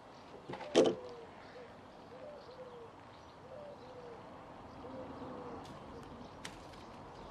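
A dove cooing over and over in short phrases of rising-and-falling coos. A single loud knock about a second in, and a faint sharp click near the end.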